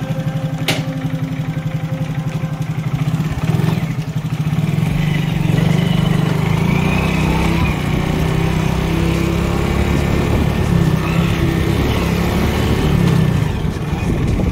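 Motorcycle engine running as the bike is ridden, a fast, even beat of firing pulses that gets louder from about five seconds in. A single sharp click comes just under a second in.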